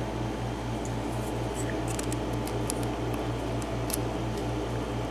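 Faint, sparse light metal ticks of a lock pick working the pins of a pin-tumbler lock cylinder, over a steady low hum that pulses about four or five times a second.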